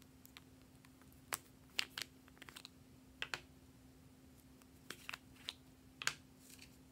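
Light plastic clicks and taps as two round lip balm pots are handled and their caps pulled off: a dozen or so short, sharp clicks at irregular intervals.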